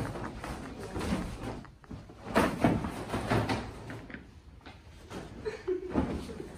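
Rustling and flapping of a large sheet and of bags being handled, with several knocks and bumps, loudest in the middle.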